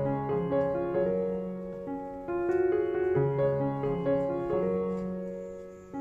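Background piano music: slow, gentle chords and melody notes struck and left to ring and fade.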